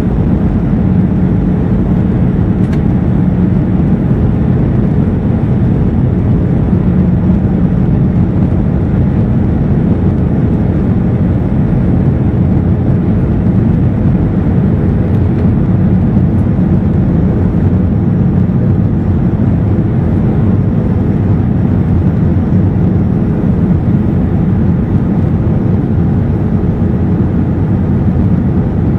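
Steady drone of an Airbus A321-211's CFM56 turbofan engines and the airflow, heard inside the passenger cabin in flight, with a low, even hum.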